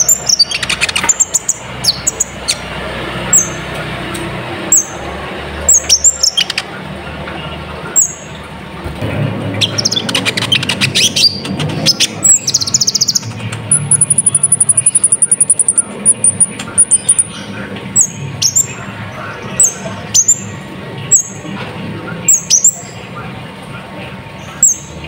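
Sunbird (kolibri ninja) singing: sharp, high chirps that drop in pitch, about one a second, with a fast twittering run about nine seconds in and a thin, high trill a few seconds later. A bird-lure recording of an energetic male in full song.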